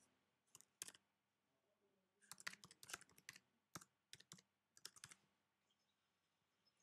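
Faint keystrokes on a computer keyboard as an email address is typed: two single taps near the start, then a quick run of typing for about three seconds that stops about two seconds before the end.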